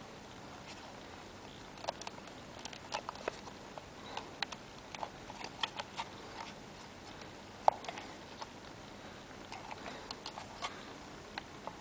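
Irregular light clicks and taps, a few at a time, over a steady faint hiss, the sharpest click a little after the middle.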